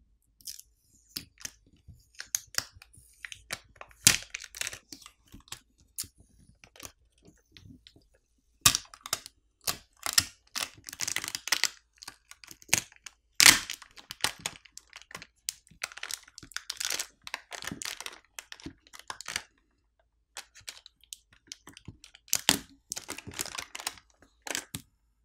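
Plastic adhesive pull pouch crinkling and crackling as it is pulled and the smartphone's lithium-polymer battery is peeled off the strong adhesive beneath it. The crackles come irregularly, thickest in the middle and again near the end, with quieter pauses between.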